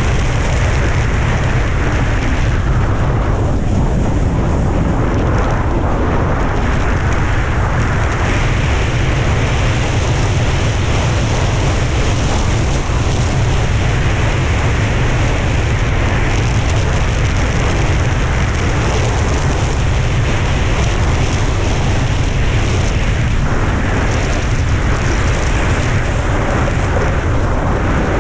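Steady, loud wind buffeting on a GoPro microphone at speed, with a heavy low rumble, over the hiss of a snowboard's base and edges sliding on hard snow.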